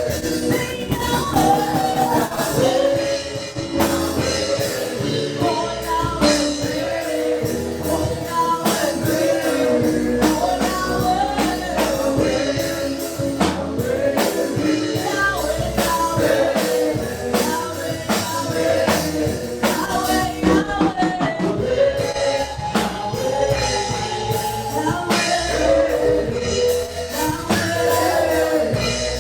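Live gospel praise music: voices singing over a band, with drum kit and tambourine keeping a steady beat.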